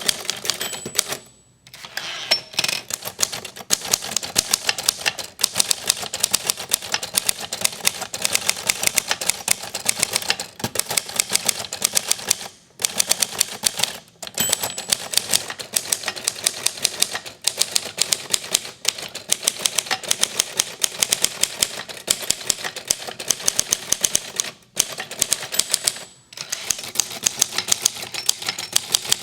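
Facit TP1 manual typewriter being typed on at a fast, steady pace: rapid type-bar strikes against the platen, broken by a few short pauses. The typing carries a jangle that the owner puts down to the extendable left platen knob lacking a washer between knob and carriage.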